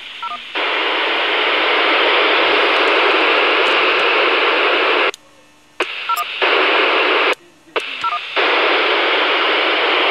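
Kenwood TM-271A FM transceiver's speaker giving loud, steady open-squelch static hiss. The hiss cuts out briefly twice, at about five and seven and a half seconds, as the radio is keyed, and a few short beeps follow each break.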